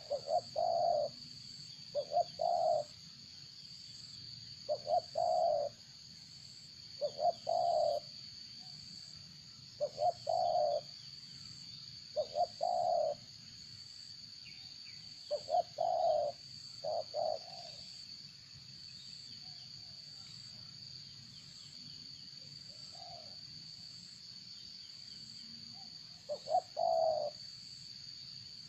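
A bird's low-pitched call, short notes in groups of two or three repeated every two to three seconds and pausing for several seconds near the end, over a steady high-pitched hum.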